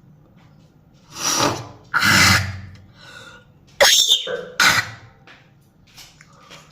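A person coughing in four harsh bursts, the first two the longest, with a shorter pair about two seconds later.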